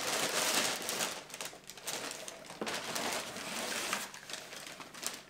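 Cardboard box and plastic wrapping rustling and crinkling in irregular bursts as a package is unpacked and a long item in a clear plastic sleeve is pulled out, loudest in the first second.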